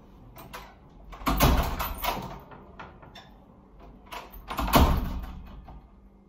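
Wooden door being handled and pulled shut: two loud thuds, one about a second and a half in and a louder one about five seconds in as the door closes, with a few small clicks between.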